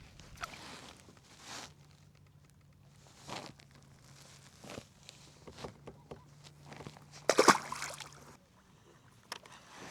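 Scattered rustles, swishes and soft knocks of fishing gear being handled in a kayak, with the loudest cluster late on, over a faint steady low hum.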